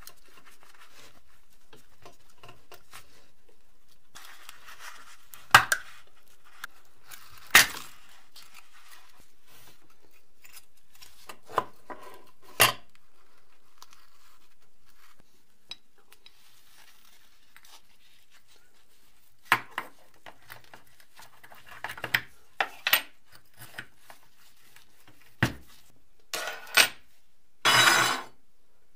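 Rusty sheet-metal parts of an old flip calendar clinking and knocking as they are handled and set down on a wooden tabletop. About a dozen sharp, separate clinks, with a slightly longer rattle near the end.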